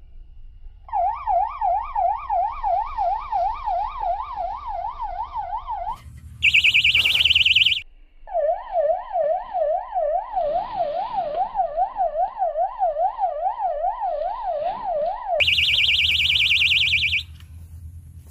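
Electronic fishing bite alarm sounding: a warbling siren-like tone that rises and falls about three times a second, broken twice by a harsher, louder buzz. It signals a fish taking the bait on one of the rods.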